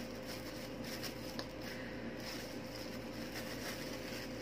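Faint crinkling of thin disposable plastic gloves being handled, over a steady background hum, with one light click about a second and a half in.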